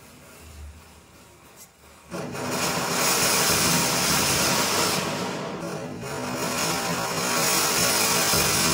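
Matchsticks burn quietly for about two seconds, then a firework fountain catches suddenly and sprays sparks with a loud, steady hiss. The hiss thins briefly around five seconds in.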